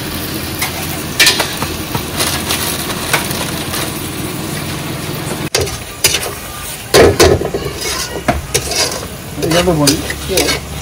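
Chilli chicken frying in a pan, a steady sizzle with the clatter of stirring, which cuts off abruptly about halfway through. After that come loud knocks and clatter and a brief voice.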